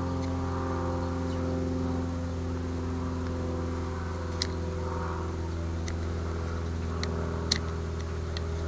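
Utility-knife razor blade slicing chips from a wooden walking stick, heard as a few sharp clicks, the loudest about seven and a half seconds in. Under it runs a steady mechanical hum with several held tones.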